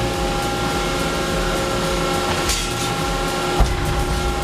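Industrial shredder running steadily with a constant machine hum and rumble, a brief hiss about two and a half seconds in and a single sharp thump about a second later.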